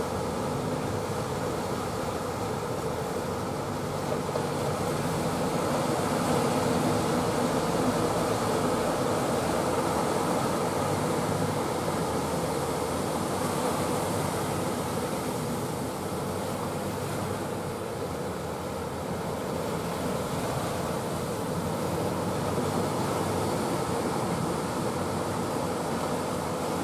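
Steady rushing of rough, churning water and surf, with a low engine hum from a wooden fishing boat underneath.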